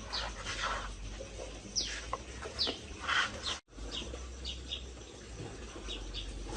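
Birds chirping: many short, quick downward-sliding chirps over a low steady hum, broken by a brief cut to silence about halfway through.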